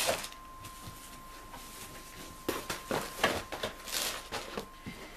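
Rustles and light knocks of a plastic model ship kit being handled, mostly in the second half, over a faint steady high tone.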